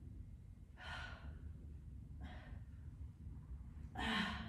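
Heavy breathing from exertion during alternating dumbbell chest presses: three short, breathy exhales about a second and a half apart, the last with a slight grunt of voice.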